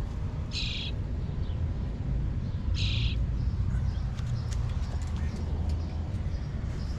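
A baby bird chirping: two short, high chirps about two seconds apart, over a steady low rumble.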